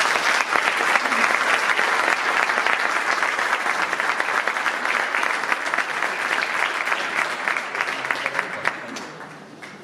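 Audience applauding: dense, sustained clapping from many hands that tapers off near the end.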